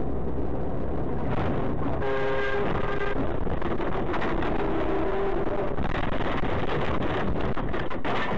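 Vehicle engine and road noise heard from inside the cab, a steady rumble. A short held tone sounds about two seconds in, and a wavering tone follows a couple of seconds later.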